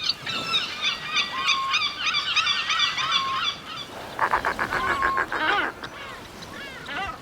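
A flock of birds calling together: many short, overlapping calls for the first three seconds or so, then a quick run of rapid calls about four seconds in.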